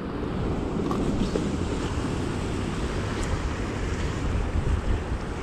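Sea surf washing and breaking over shoreline rocks, a steady rush with wind buffeting the microphone.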